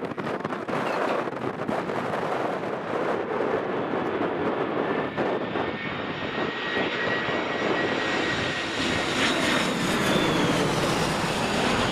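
Twin jet engines of an Airbus A319 airliner on landing approach, passing low overhead. A steady rush grows louder, with a thin fan whine that falls in pitch as the aircraft goes over.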